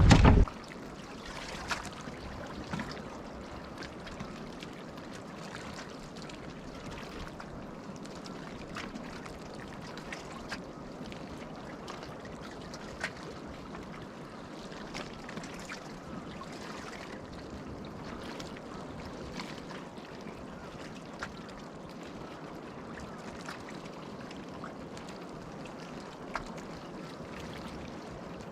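Water lapping and trickling steadily, with scattered small ticks and clicks.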